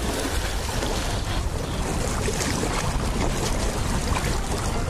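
Steady wind buffeting the microphone, a low rumble, over water lapping against the jetty rocks.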